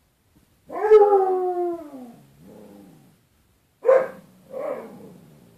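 A dog howling and "talking": one long howl that falls in pitch, starting just under a second in, then a quieter, lower call, then two short yowls near the end.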